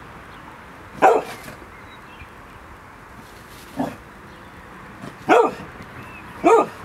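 Chocolate Labrador retriever barking in single barks: one about a second in, a softer, lower one near the middle, and two more about a second apart near the end.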